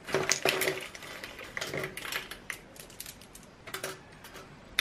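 Irregular clicking and clattering of small hard objects being handled and set down on a tabletop: a beaded bag and plastic skincare bottles and tubes. The clicks come thickest in the first second.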